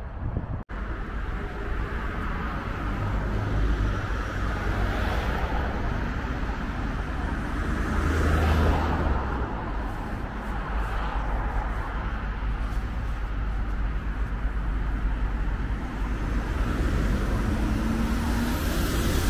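Road traffic noise mixed with wind buffeting the microphone in a steady low rumble. One vehicle passes by close, swelling and fading about halfway through.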